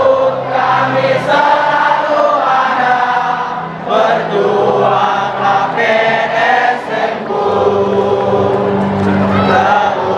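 A large stadium crowd of football supporters singing a chant together, many voices holding a melody in long phrases.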